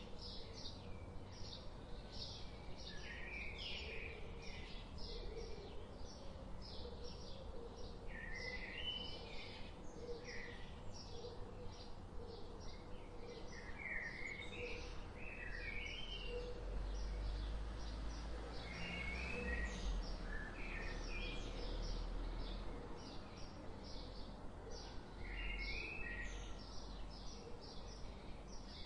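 Small birds chirping and twittering in quick short calls over steady background noise, with a low rumble in the middle.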